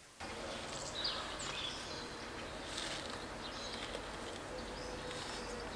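Outdoor ambience: small birds chirping now and then over a steady low hum.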